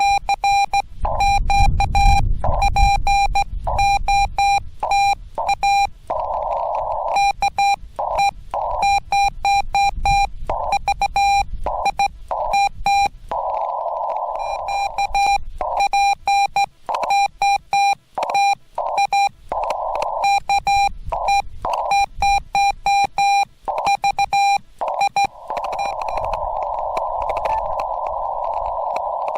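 Morse code from a Yaesu FT-891 transceiver: a steady beep keyed by hand on a straight key into dots and dashes, in groups separated by stretches of band hiss heard through the radio's narrow CW filter. The hiss drops out while the beep is keyed, as the receiver mutes when transmitting.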